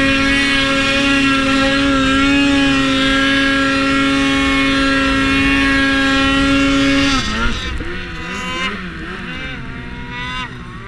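Polaris Axys SKS 146 snowmobile's two-stroke engine running at a steady high pitch under full throttle on a climb in deep snow. About seven seconds in the throttle comes off and the engine drops to a lower, wavering speed with short blips as the sled crests the top.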